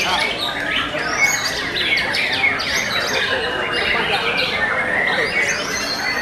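White-rumped shamas singing: a dense, unbroken run of overlapping whistles, slurred notes and quick trills from several birds at once.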